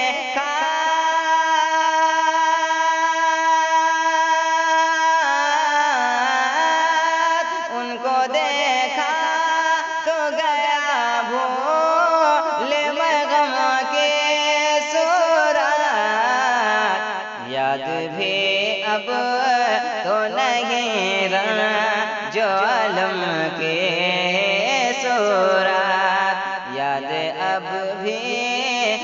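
Male voice singing a kalam in long, ornamented melismatic phrases, holding one steady note for about the first five seconds before sliding and turning through the melody.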